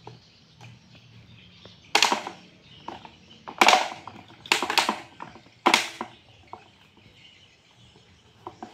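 Plastic knocks and clicks from a Sanex 10-inch desk fan's head and neck joint as the head is handled on its stand pole and tilted by hand: four louder knocks through the middle, with small clicks between.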